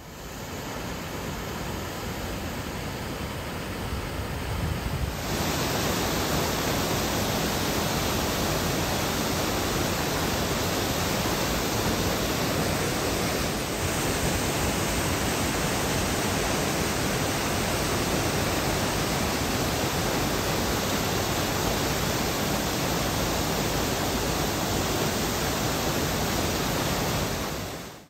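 Kirkjufellsfoss waterfall: falling water rushing steadily, a dense even noise that steps up in level about five seconds in.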